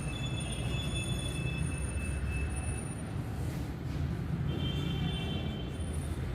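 Heavy machinery running with a steady low rumble, joined by thin high-pitched squeals during the first half and again about two-thirds of the way through.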